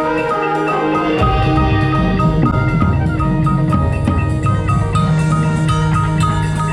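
Drum corps front-ensemble music played close to the microphone on xylophone and glockenspiel, a stream of struck pitched notes. About a second in, a full low sound from the rest of the ensemble comes in under the mallets.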